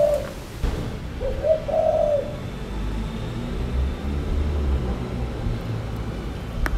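Spotted dove cooing, two low coos in the first two seconds, over a steady low rumble.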